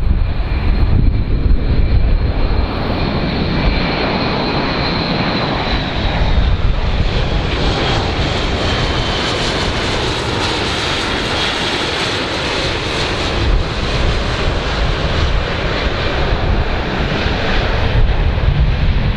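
Airbus A400M's four turboprop engines with eight-bladed propellers droning as it flies past low, a high whine sagging slightly in pitch as it approaches and the noise growing fullest midway. Wind rumbles on the microphone at the start and end.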